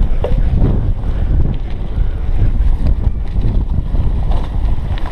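Wind buffeting a GoPro Hero 3's microphone as a cyclocross bike rides fast down a dirt trail, mixed with the rumble of the tyres and scattered rattles over the rough ground.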